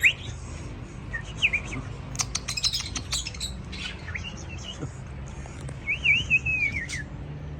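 Birds chirping and whistling: short rising chirps, a quick run of sharp, clicky calls a couple of seconds in, and a wavering whistled call near the end, over a steady low hum.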